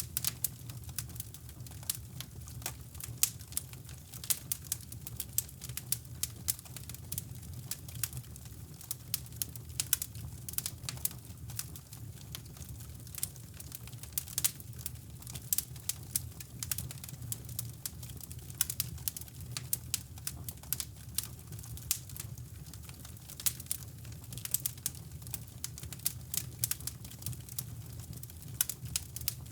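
Fireplace fire crackling with dense, irregular pops and snaps over a steady low brown-noise rumble.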